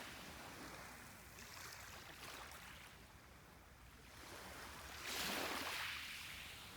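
Sea waves washing onto the shore: a soft steady wash, with one wave surging in louder about five seconds in and then drawing back.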